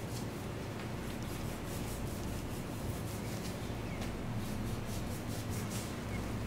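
A butcher's knife slicing and scraping under the surface fat of a wagyu beef knuckle in a series of short, soft strokes, the blade peeling the fat layer away from the meat. A steady low hum runs underneath.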